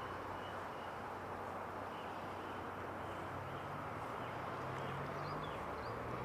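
Steady riverside ambience: a constant rushing noise with a few faint bird chirps, and a low engine drone that rises a little in pitch about halfway through.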